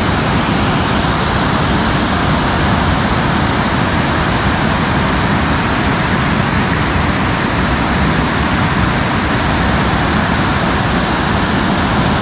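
Waterfall pouring over rock ledges: a loud, steady rush of water.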